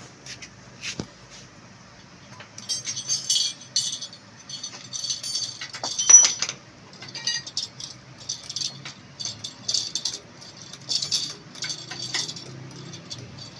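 Light metal-on-metal clinks and taps as galvanized iron sheet shims and the wheel bearing are worked into a motorcycle's aluminium rear brake-drum hub. They come in irregular clusters, with one sharper ringing strike about six seconds in.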